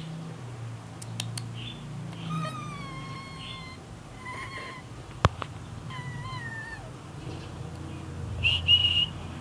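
Small dog whining: several long, high whines that slide down in pitch, then a louder, higher squeal near the end. A single sharp tap about halfway through.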